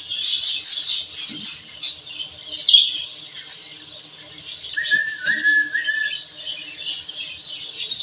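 Budgies chattering and squawking in rapid rasping calls, with a short wavering whistled note about five seconds in.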